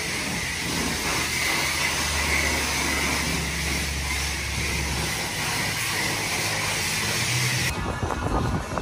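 High-pressure spray wand at a self-service car wash spraying water in a steady hiss over a low hum, cutting off near the end.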